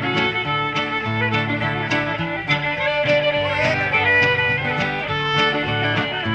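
Cajun fiddle playing a sliding melody line over a strummed acoustic guitar rhythm, with no singing: an instrumental passage of a Cajun song.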